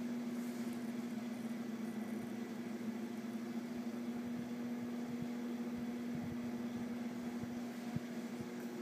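A steady mechanical hum with an even hiss under it, with a light bump near the end.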